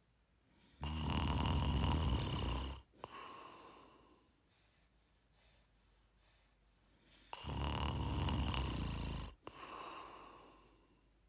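A person snoring: two snores, each about two seconds long and followed by a shorter, softer breath, the second starting about seven seconds in.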